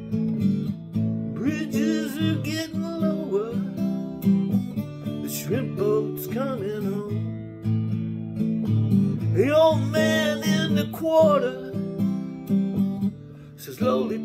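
Acoustic guitar strummed in a steady chord pattern, with a man's voice singing over it in two phrases, about two seconds in and again about ten seconds in.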